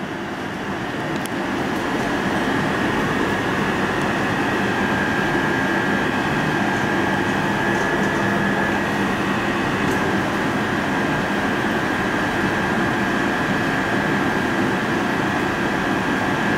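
Steady mechanical room hum with a thin high whine, building slightly over the first couple of seconds and then holding level.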